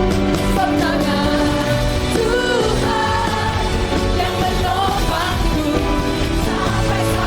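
Live worship band playing a contemporary praise song with singing over a steady beat.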